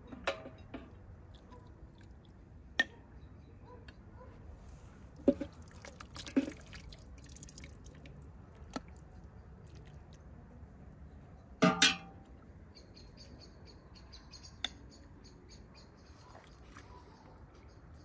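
Metal ladle clinking and knocking against a large metal cauldron and a porcelain bowl while stew is ladled out, with broth pouring into the bowl. The clinks come one at a time, a few seconds apart, the loudest a quick double knock about two-thirds of the way through.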